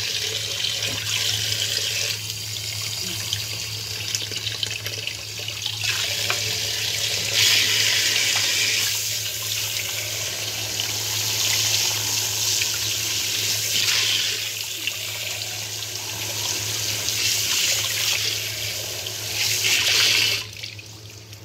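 Kitchen tap running into a sink while a whole raw chicken is rinsed under the stream. The splashing swells and eases as the bird is moved in and out of the water. The running water cuts off about a second before the end.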